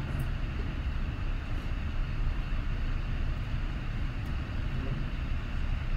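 Steady low rumble with a faint hiss and no distinct events: room tone between stretches of talk.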